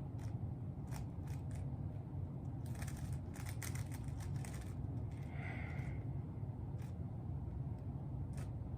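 Plastic Rubik's cube being turned by hand: scattered clicks of the layers snapping into place, with a quick run of turns about three seconds in. A steady low hum runs underneath.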